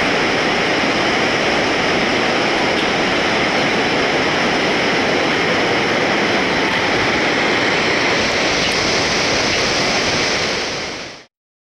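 Steady rushing of whitewater river rapids far below, fading out about a second before the end.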